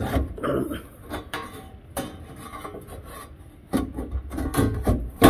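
A hand rubbing and pressing along a bare welded steel sill panel: irregular scuffing with short knocks, busier and louder near the end.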